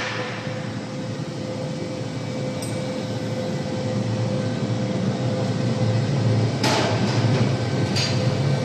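Industrial double-auger meat grinder running with a steady mechanical hum that grows a little louder toward the end, with two short hissing bursts near the end.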